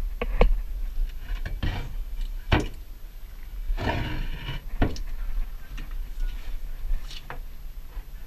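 Handling noises from working with a plastic tub of mixed resin and its tools: a few sharp knocks and short scraping rubs, with a low hum underneath.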